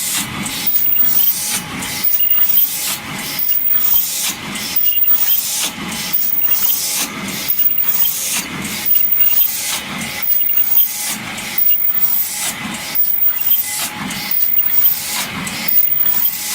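Open-cam paper cup forming machine running at about 50 cups a minute, making 16 oz double-PE paper cups. Its mechanical clatter repeats in an even cycle, about one stroke every second or so.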